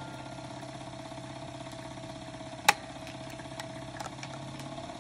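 Wilesco punched-card music-box organ mechanism running with a steady mechanical hum. A comb note rings on and fades out, one sharp click comes about halfway through, and a few faint ticks follow.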